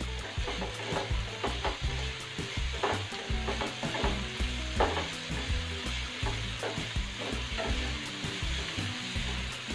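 Diced vegetables sizzling in a nonstick frying pan while a wooden spatula stirs and scrapes them: a steady sizzle under irregular scrapes and taps, a few of them sharper.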